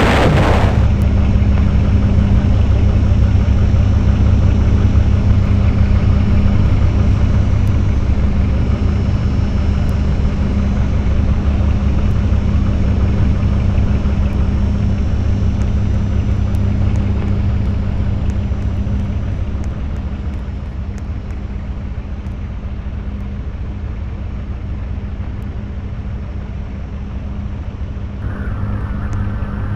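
Electric fan running with a steady low hum and whir, which grows somewhat quieter after the middle.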